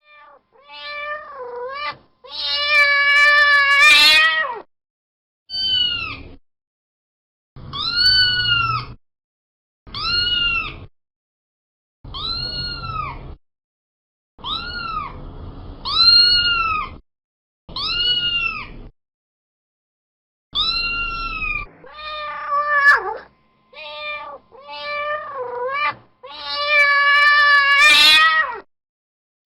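Domestic cat meowing over and over, about a dozen separate meows that each rise and fall in pitch. Longer, drawn-out calls come near the start and near the end.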